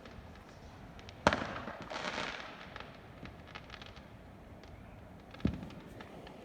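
Fireworks going off: a sharp loud bang about a second in, followed by a spell of crackling and scattered small cracks, then a second, quieter bang near the end.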